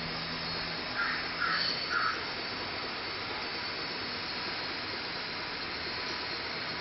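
Packaging-film rewinding machine running with a steady whirring hiss. Around one to two seconds in, three short higher-pitched calls sound about half a second apart over it.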